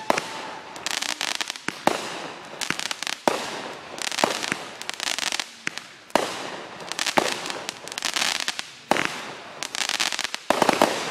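Fireworks going off in quick succession, a sharp bang about once a second. Each bang is followed by a spray of crackling from the bursting stars.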